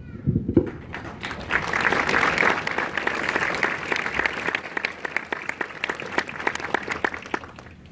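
Crowd applauding: a dense patter of clapping that swells about a second in and tapers off near the end.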